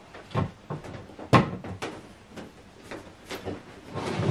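A few scattered knocks and bumps as a large flat-screen TV on its stand is handled and turned around on a TV cabinet, the loudest about a second and a half in.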